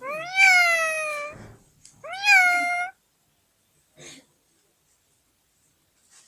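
Indian ringneck parakeet mimicking a cat's meow: two long meows, each rising and then sliding down in pitch, about a second apart.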